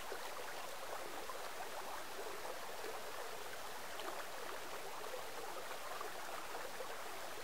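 Steady rush of water from a fast-flowing stream running over rocks.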